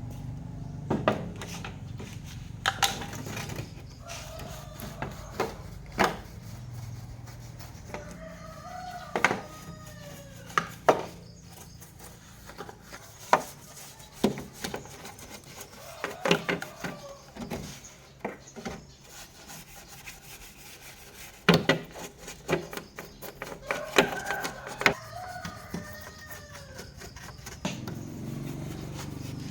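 Irregular sharp clicks and knocks, like hard objects being handled and set down, with chickens clucking and calling in the background.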